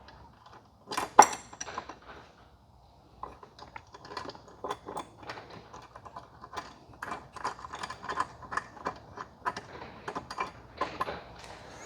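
Small metal clicks and clinks of a steel bolt, washer and nut being fitted by hand through the rack's bracket: one sharp clink about a second in, then a long run of irregular ticks as the nut is worked onto the bolt.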